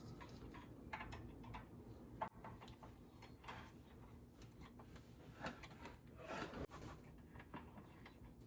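Faint, scattered clicks and light knocks of metal sway-bar hardware and hand tools being handled, a few seconds apart.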